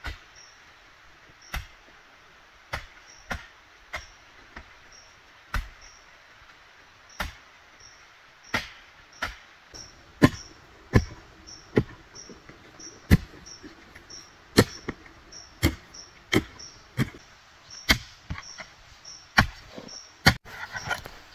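A long-handled hoe striking into soil over and over, a sharp thud about every second, coming quicker in the second half. A faint high chirp repeats evenly behind it.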